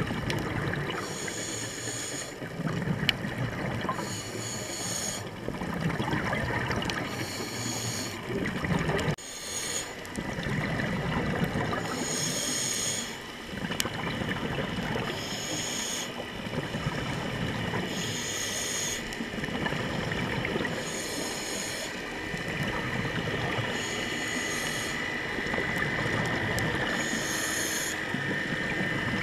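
Scuba regulator breathing underwater: a hiss on each inhale alternating with the low bubbling rumble of each exhale, repeating every two to three seconds.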